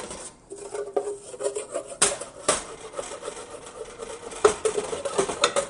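A wooden spoon scraping and knocking around the inside of a stainless steel saucepan, with a few sharp knocks against the pan, as browned butter is stirred and the brown bits are scraped up from the bottom.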